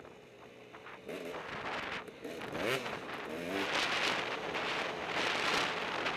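A two-stroke enduro dirt bike heard from the rider's helmet camera: its engine revs up and down in short blips while descending a rough trail. In the second half, wind rushing over the microphone grows louder.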